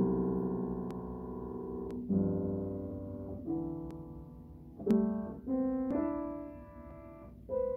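Piano playing a short, slow piece of chords, each struck and left to ring and fade, about seven in all, ending on a single held note near the end.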